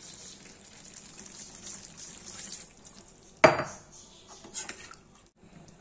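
Curry sizzling faintly in a steel kadai, then one loud metal clank with a short ring about three and a half seconds in as the slotted steel spoon strikes the pan, and a lighter clink about a second later.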